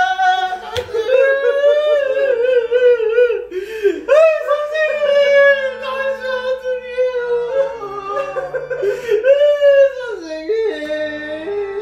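A person wailing in exaggerated mourning: long, drawn-out cries that waver up and down in pitch, broken by short catches for breath about four and eight seconds in.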